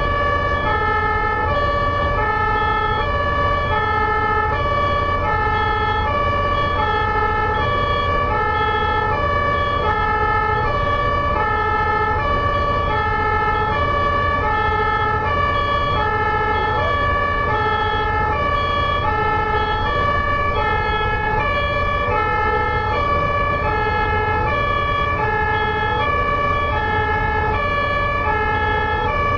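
German ambulance's two-tone siren (Martinshorn) sounding continuously, alternating steadily between a high and a low tone. A low road rumble from traffic runs underneath.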